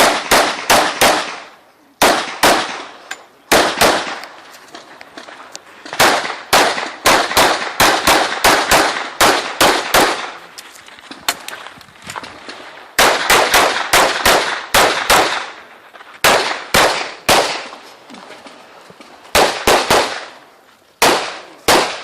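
Handgun fired in loud, quick strings of sharp shots, each shot followed by a short echo. The shots come in clusters of two to several at a time, with pauses of a second or so between clusters, as in a USPSA course of fire.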